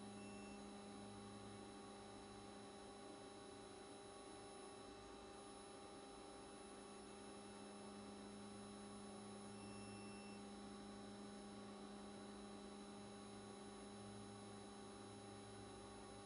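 Faint, steady electrical-sounding hum with a low drone and a few higher steady tones, otherwise near silence.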